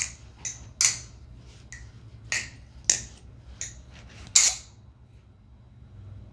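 MachineWise Mayrn Lite balisong being flipped: an irregular run of sharp metallic clicks and clacks as the handles swing round and strike, the loudest about four and a half seconds in, after which the clicking stops.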